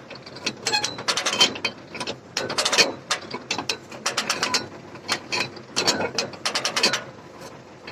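Sipma Z-224/1 small square baler running, its mechanism giving a rapid, irregular clatter of clicks and knocks. The plunger is knocking, which the farmer suspects could be a bearing or the ratchet clutch.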